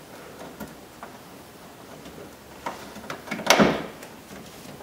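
Hands working inside a bare sheet-metal car door, a Toyota Sequoia's front door: scattered light clicks and taps from clips and wiring against the inner panel. A louder knock comes about three and a half seconds in.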